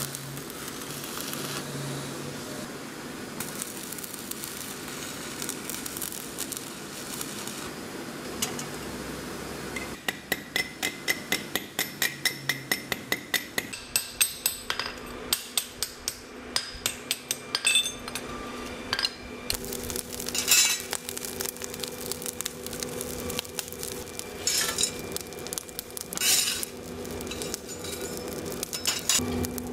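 Stick (arc) welding for about ten seconds, a steady crackling hiss. Then a quick run of hand-hammer blows on steel held on an anvil, about three to four a second for some nine seconds, followed by scattered metal knocks and coal being raked in a forge over a steady low hum.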